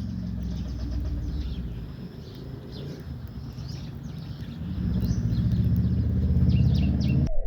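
House sparrows chirping in quick, short notes over a steady low engine drone that grows louder in the second half. The sound cuts off abruptly near the end.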